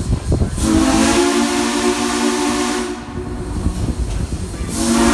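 Steam locomotive whistle blowing two blasts, a chord of several notes with steam hiss: a long blast of about two and a half seconds, then a second one starting near the end. A low rumble comes just before the first blast.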